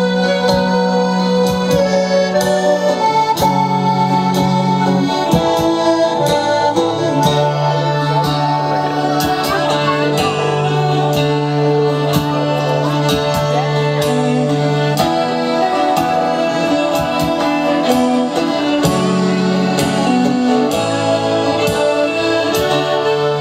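Instrumental folk tune played by a band of squeezeboxes: the reeds sound a melody over long held chords and bass notes, with a steady beat of sharp strokes underneath.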